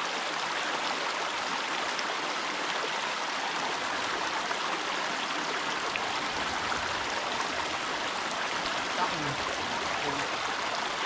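Small creek running over rocks: a steady rush of flowing water.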